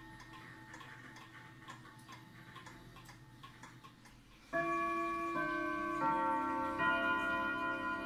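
Pendulum clock ticking steadily under the faint, fading ring of an earlier strike. About four and a half seconds in, a pendulum wall clock begins its chime: four ringing notes, each entering about two-thirds of a second after the last and ringing on over the others.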